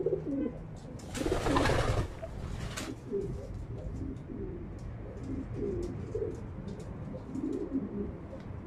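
Several domestic pigeons cooing, their low warbling coos repeating on and off. About a second in, a loud rushing noise lasts about a second. Faint short clicks are scattered throughout.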